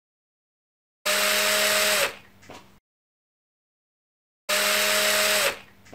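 Electric screwdriver running in two bursts of about a second each, backing out the case screws of a satellite receiver; each burst winds down with a few faint clicks.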